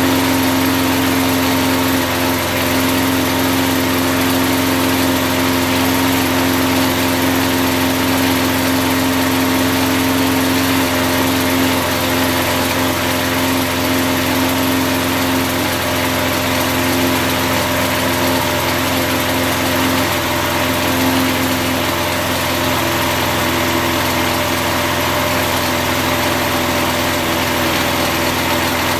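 Small push lawn mower engine running steadily at an even speed, its crankcase lubricated with car wax instead of oil.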